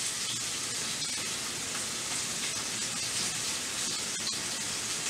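Beef rump roast searing in a hot skillet: a steady sizzle as the outside of the meat browns.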